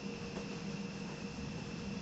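Steady rain falling in a night thunderstorm, an even hiss with no thunder, under a faint steady high tone.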